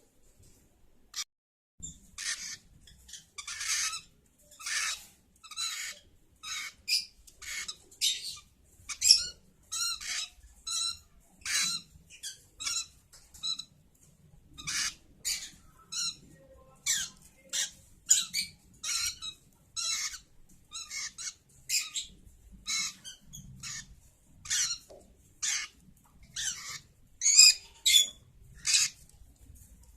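Pet lovebird calling with a long run of short, shrill squawks and chirps, about one or two a second, with brief pauses.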